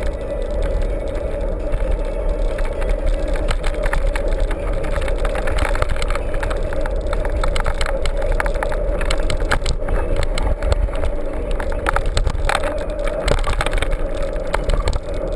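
Mountain bike riding over a rough trail: a steady rumble with frequent rattling clicks from the bike throughout.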